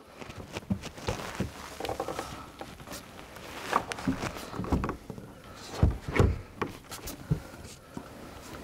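Irregular knocks, clicks and clatter of things being handled, with a few heavier thumps about six seconds in.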